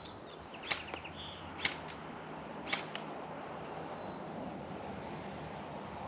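Electric gel blaster firing single shots, three sharp clicks about a second apart in the first three seconds, then stopping. A bird keeps up short, high chirps at an even pace throughout.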